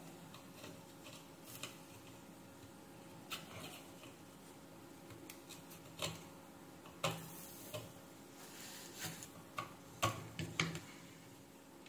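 Soldering iron tip and a metal tool clicking and scraping lightly on a circuit board as damaged surface-mount resistors and a diode are desoldered and lifted off: faint, irregular small ticks, the loudest in the second half.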